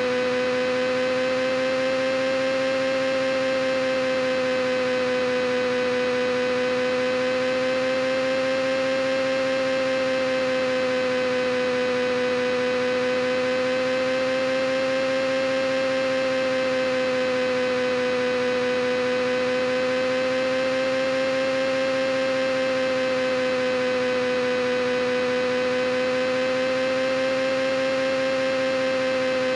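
A steady droning hum with a strong pitch and many overtones, slowly wavering up and down in pitch every few seconds.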